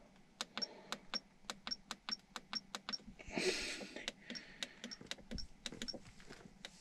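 Small buttons on a dash cam pressed in quick succession, about four clicks a second, stepping through the clock setting. There is a short breathy rustle about halfway through.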